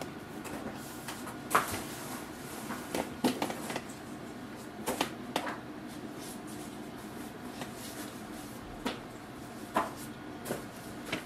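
HP Envy 6155e all-in-one printer's flatbed scanner running a scan: a steady low hum with sharp mechanical clicks and knocks at uneven intervals.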